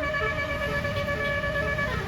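Indonesian bus 'telolet' musical air horn (Basuri type) holding one long steady note for nearly two seconds, then cutting off just before the end, over a low engine and traffic rumble.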